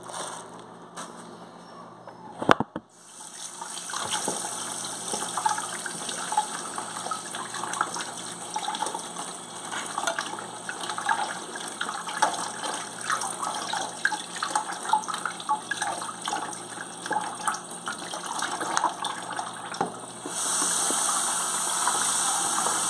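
A sharp knock a couple of seconds in, then a kitchen tap running into the sink with irregular splashing as pieces of raw liver are washed under it by hand. Near the end the stream turns stronger and steadier.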